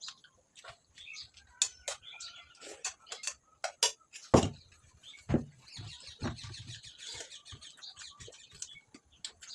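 Close-up eating sounds of rice and fried fish: wet chewing and lip smacking in irregular clicks, with a louder thump about four seconds in.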